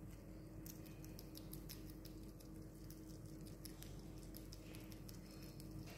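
Sugar glider chewing a mealworm: quick, irregular, faint crunchy clicks of its small teeth, over a steady low hum.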